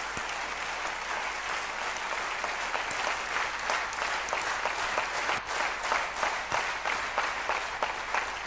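Large audience applauding. The clapping is a dense wash at first, and from about three seconds in single claps stand out more and more.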